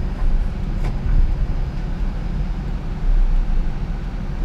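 Steady low vehicle rumble heard inside a Toyota Prius cabin as the car is driven slowly up onto a tilted rollback tow-truck bed.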